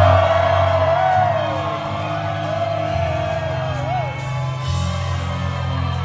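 Psychedelic rock band playing live: electric guitar, keyboards and bass holding long notes that change every second or two. Above them, a voice or high line slides up and down.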